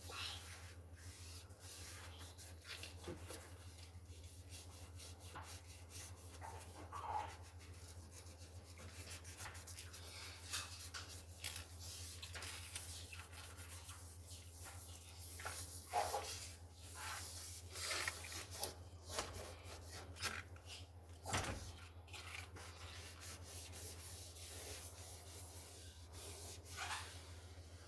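Scrubbing and wiping while cleaning a refrigerator: irregular rubbing strokes across a surface, with a few light knocks, over a steady low hum.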